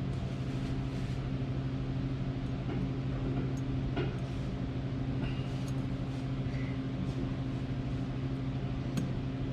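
Steady low machine hum, even in pitch and level, with a few faint light clicks, about four seconds in and again near the end.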